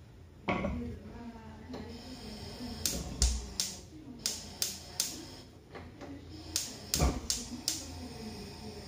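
Gas stove's spark igniter clicking repeatedly, about a dozen sharp clicks a few tenths of a second apart, as the burner under a clay tajine is lit. A knock comes about half a second in, as the terracotta dish goes down on the iron grate, and two duller knocks fall among the clicks.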